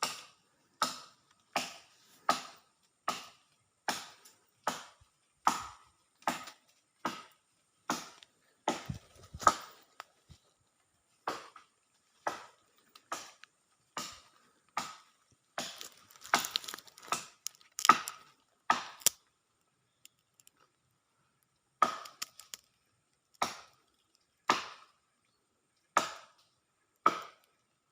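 A long series of sharp knocks, each with a short ringing note. They come about one every three-quarters of a second at first, grow irregular and crowded midway, stop for about two seconds, then return about one every one and a half seconds.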